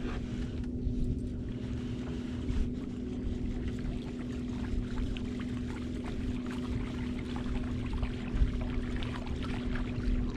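A 55-pound-thrust electric trolling motor running with a steady hum, while water laps and trickles against the small aluminum boat's hull.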